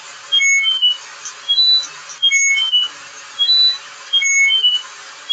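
A repeating electronic chirping melody: short, high beeps in the same pattern about every two seconds, over a hiss that swells and fades about once a second.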